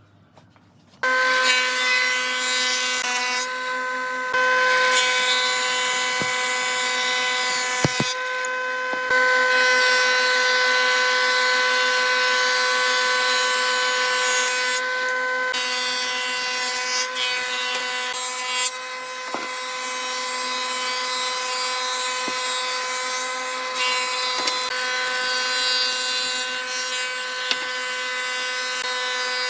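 Electric woodworking power tool starting about a second in and running at a steady pitch while cutting wood, the cutting noise easing off briefly a few times as the work pauses between passes.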